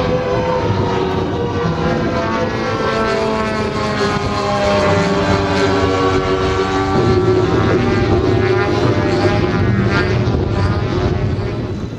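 Propeller-driven engine of a large RC aerobatic model, a CARF Sukhoi Su-29 with a DA-170 twin-cylinder two-stroke petrol engine, running hard through 3D aerobatics. Its pitch rises and falls with the throttle changes.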